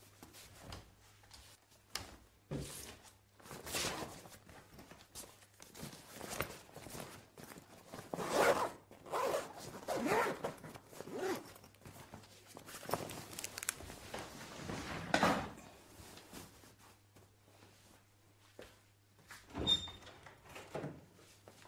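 Zipper of a black fabric bag pulled in a series of short strokes as it is packed and closed, then a few footsteps near the end.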